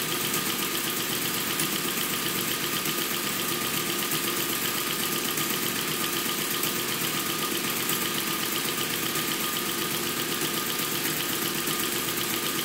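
Friden ACG mechanical calculator running on continuously: its motor and gear train cycle over and over with a steady, fast, even beat as the machine keeps counting without stopping.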